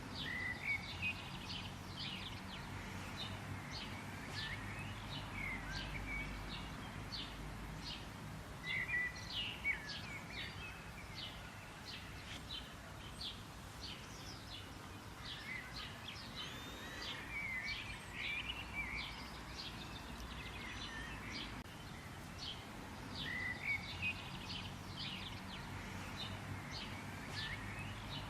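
Songbirds chirping and singing, many short high chirps and quick trills overlapping throughout, over a steady low background rumble.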